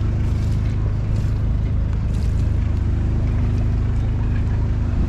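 Tour boat's engine running steadily with a low drone, with short hissing bursts every second or so as it moves through choppy sea.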